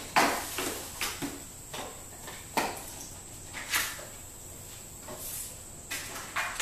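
Cardboard packaging being handled: a jump starter's white box and cardboard insert rubbed, slid and set down, giving about ten irregular scrapes and light knocks.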